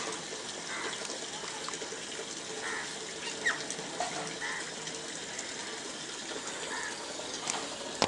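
A steady, even hiss of background noise with a few faint, short bird chirps scattered through it, one of them a quick whistled glide about three and a half seconds in.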